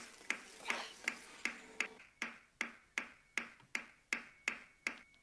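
A steady run of sharp ticks, about three a second, evenly spaced like a clock or metronome, with a faint low steady tone under the first two seconds.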